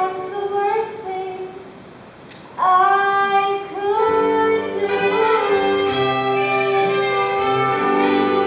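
A female voice singing a show tune with instrumental accompaniment; after a quieter moment about two seconds in, the voice comes back in loud on long held notes.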